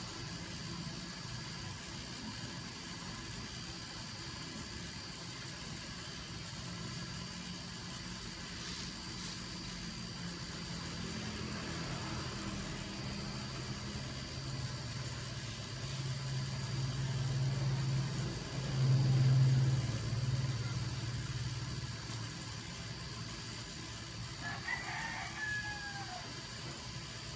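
A rooster crows once near the end, over a steady low engine hum that swells to its loudest about two-thirds of the way through.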